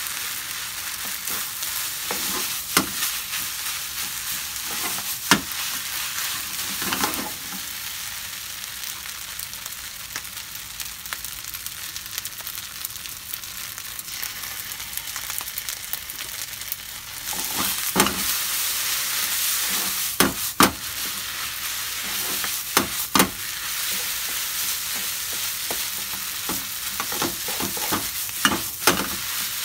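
Ketchup rice with sausage sizzling in a frying pan while a wooden spatula stirs and scrapes it, with scattered sharp knocks of the spatula against the pan. The sizzle eases in the middle and grows louder again a little past halfway.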